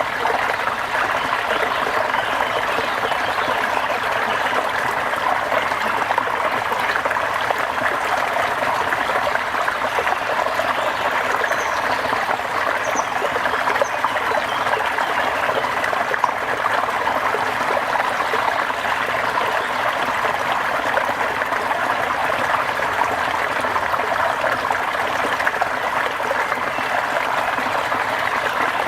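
Steady rain, an even, unbroken wash of water noise.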